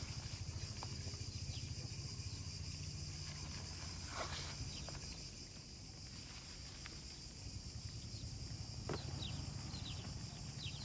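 Light clicks and taps of wild plums being handled and dropped into a shallow woven tray, over a steady low outdoor hum. A few short high chirps come near the end.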